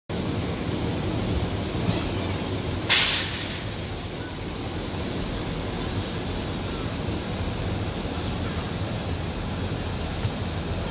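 Steady outdoor wind noise with a low, fluctuating rumble on the microphone, and a brief loud hiss about three seconds in.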